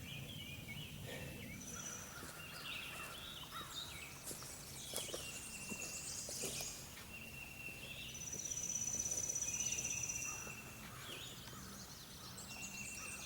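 Wild songbirds calling over a steady outdoor hiss, with short chirps throughout. About eight seconds in, a high trill runs for about two seconds and is the loudest sound.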